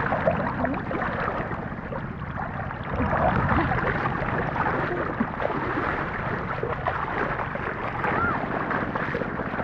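Steady rushing, gurgling water noise, with wind buffeting the microphone.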